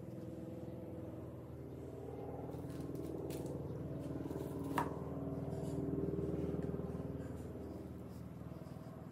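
Sesame seeds crackling as a zucchini-roll slice is pressed and turned in them, with one sharp tap about five seconds in, over a steady low hum.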